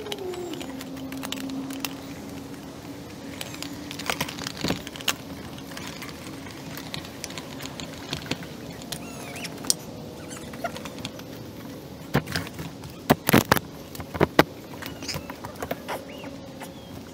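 Nylon military gear pouches being handled and fastened onto a vest: scattered rustles, clicks and snaps of buckles and fasteners, with a loudest run of sharp knocks about 13 to 14 seconds in. A faint low steady hum sits underneath.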